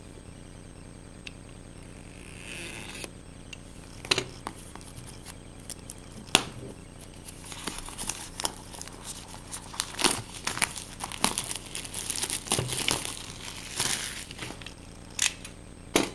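Plastic shrink-wrap being torn and peeled off a new iPhone box, crinkling in a long run of bursts from about seven seconds in. There are a few sharp clicks before and near the end.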